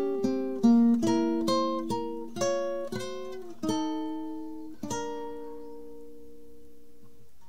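Intro music played on a plucked guitar: a run of picked notes that slows down, ending about five seconds in on a chord left ringing and slowly fading.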